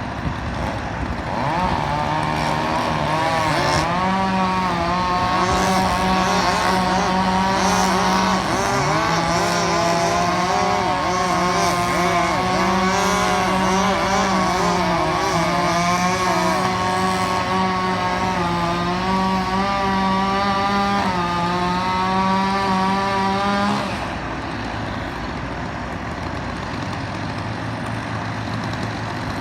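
Chainsaw engine running at high revs, its pitch dipping and recovering a few times as it cuts. It cuts off after about 24 seconds, leaving a lower, quieter engine hum.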